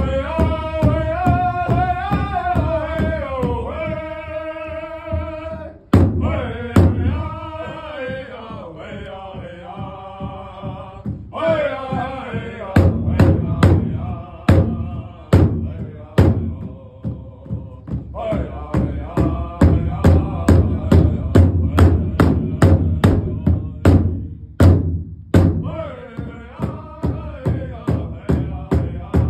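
A powwow drum group: several men singing together in high, chanted phrases over a steady, evenly spaced beat struck on a large shared drum. The voices fall back to a quieter passage midway while the beat continues, then come back in full.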